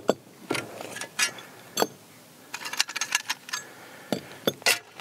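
Metal grill grate rails and screw-on stanchions clinking and knocking together as they are taken apart and set down: a dozen or so sharp, irregular clinks, with a quick run of them about halfway through.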